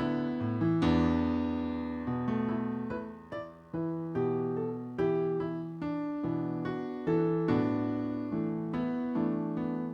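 Background piano music: notes and chords struck at a slow, even pace, each ringing and dying away, with a brief pause about three and a half seconds in.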